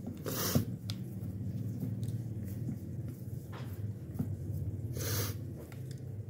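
Quiet handling of pie dough, pressed and worked by hand around the rim of a metal pie dish, with a few faint clicks. Two short sharp breaths through the nose, about half a second in and again about five seconds in, over a low steady hum.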